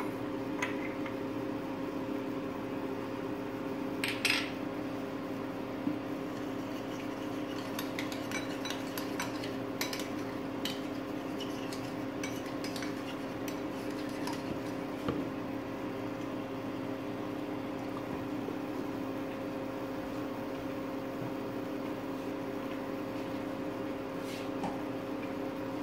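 A metal spoon clinking against a small glass bowl as cornflour is stirred into water: one sharper clink about four seconds in, then a run of light clinks in the middle, and a last one near the end. A steady low hum runs underneath.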